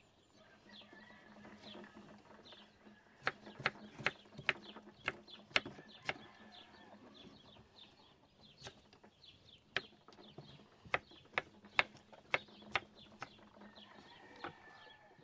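A knife dicing pineapple on a wooden cutting board: sharp knocks of the blade hitting the board, irregular at about one or two a second, starting a few seconds in and stopping near the end. Birds chirp faintly underneath.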